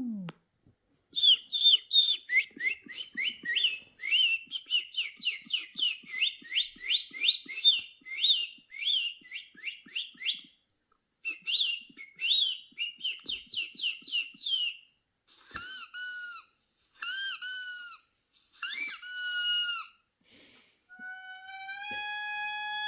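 High, bird-like chirping whistles repeated quickly, about four a second, with a short gap partway through. Then come three short whistle calls, each rising and then falling, and near the end a long steady whistle tone begins.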